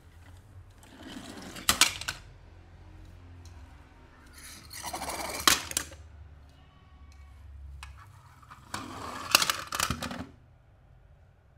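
A pile of die-cast and plastic toy cars clattering and knocking together in a cardboard box, in three separate bursts of rattling with sharp clicks.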